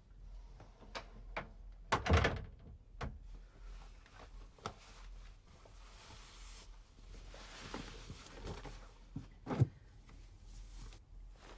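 A door shutting with a thump about two seconds in, then a few light knocks and footfalls, and clothing rustling as it is pulled off over the head. Another sharp thud comes near the end.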